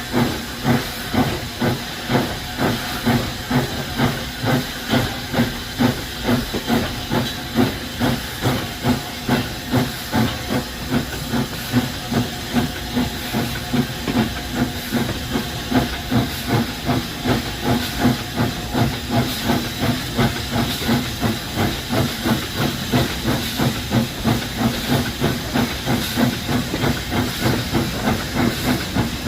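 J94 Austerity 0-6-0 saddle tank steam locomotive working under steam, its exhaust chuffing in a steady, even beat of about one and a half chuffs a second over a continuous hiss of steam.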